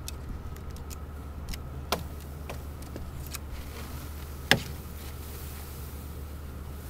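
Screened wooden bee package being tipped and knocked against a wooden hive body to shake the bees out: sharp knocks about two seconds in and, loudest, about four and a half seconds in, amid lighter ticks and taps, over a steady low rumble.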